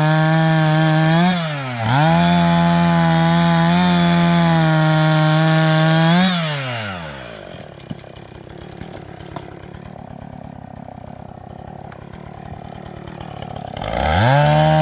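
Chainsaw running at high revs with a steady note that dips and recovers about a second in. Around six seconds in it falls away, leaving a quieter stretch with small clicks. Near the end it revs back up to full speed.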